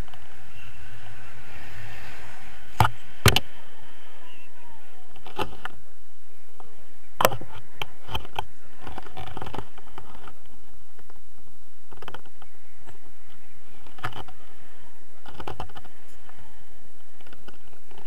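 Wind rushing over the camera's microphone during a paraglider flight, with a few sharp knocks, the loudest about three and seven seconds in.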